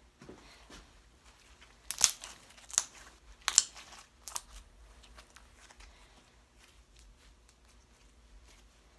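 Slime being stretched and squeezed by hand, giving three loud crackling pops about two, three and three and a half seconds in, then fainter crackles.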